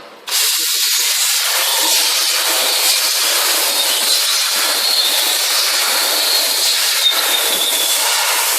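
CNC sheet-metal V-grooving machine making a cutting pass: the cutter scraping a groove along a steel sheet as a steady, hiss-like noise that starts abruptly just after the start, with a faint steady high tone under it.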